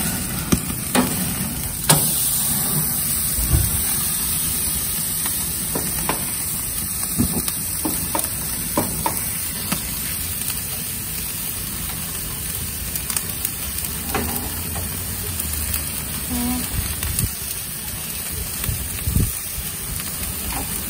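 Tomahawk steak sizzling as it sears over a propane gas grill at about 600 degrees, a steady hiss with fat dripping and flaring into flames. A few sharp clicks and knocks come from the metal tongs turning the steak on the grates.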